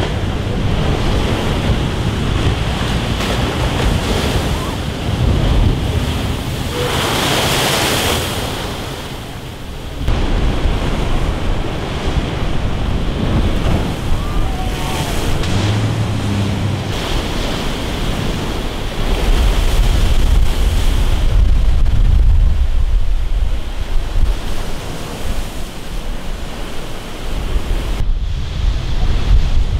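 Heavy storm surf crashing and surging against a concrete seawall, with one especially loud crash and spray hiss about eight seconds in. Strong wind buffets the microphone throughout.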